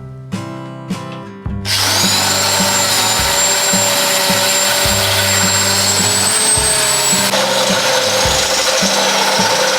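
An electric power tool starts about 1.7 s in and runs steadily on metal with a high whine, its pitch dipping slightly near the end. Background music with a plucked-string, rhythmic bass line plays throughout.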